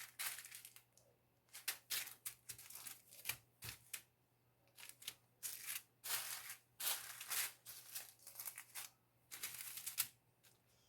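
Small plastic bags of diamond painting drills being handled and counted: faint, irregular crinkling and clicking of the plastic, in quick bursts with short pauses.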